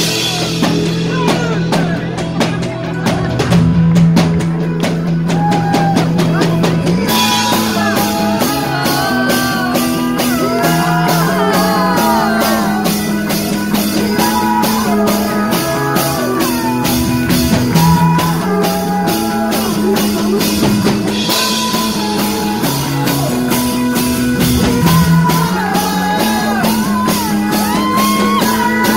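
Live rock band playing: drum kit keeping a steady beat under acoustic and electric guitars, with a woman singing lead from about seven seconds in.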